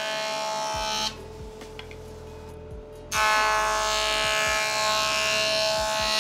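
Jointer planing a wooden board in two passes, with a compact dust collector extracting the chips. Each pass is a loud cutting noise with a steady whine. Between the passes, about a second in, the noise drops to a quieter running hum for about two seconds.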